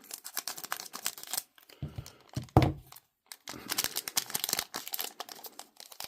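Trading card booster pack wrapper being torn open and crinkled by hand, crackling in two stretches, with a single thump about two and a half seconds in.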